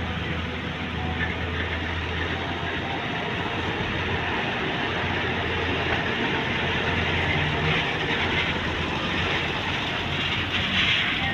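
Volvo EC210B excavator's diesel engine running steadily under working load, with a low hum and a rumble of machinery. A brighter rushing hiss builds over the last few seconds.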